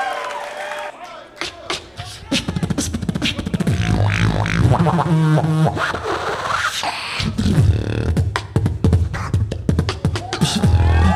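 Solo beatboxing into a handheld microphone over a PA: rapid vocal kick-drum and snare hits, clicks and held bass tones in a steady rhythm, starting quietly and coming in strongly about two seconds in.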